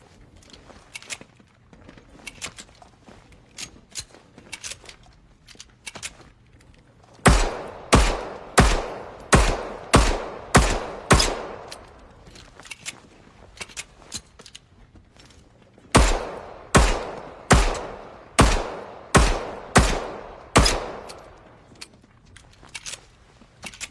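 M1911 .45 pistol fired in two strings of seven shots, about one every 0.7 seconds, each string as many rounds as its magazine holds. Light clicks come before and between the strings.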